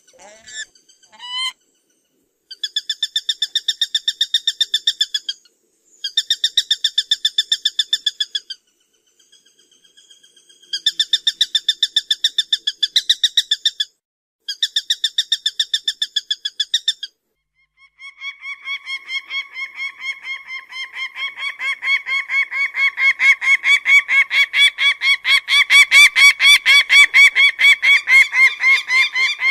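Peregrine (shaheen) falcon calling: bouts of rapid repeated notes, each about three seconds long with short breaks between them. About two-thirds of the way through, these give way to one long, lower chatter that grows steadily louder.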